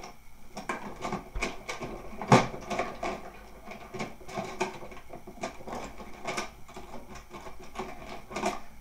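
Small hard tools being handled and picked through by hand: a run of irregular clicks and light clatter, the sharpest knock about two and a half seconds in.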